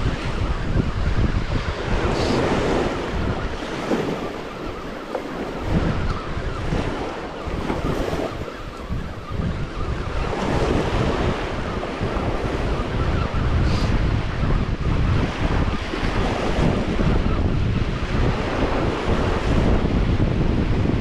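Small ocean waves breaking and washing up a sandy beach, rising and falling every few seconds, with wind buffeting the microphone.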